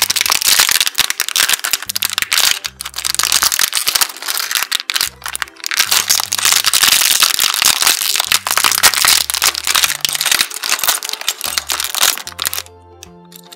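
Clear plastic bag crinkling loudly as hands tear it open and knead it, with small plastic bricks rattling inside; the crinkling stops near the end. Light background music underneath.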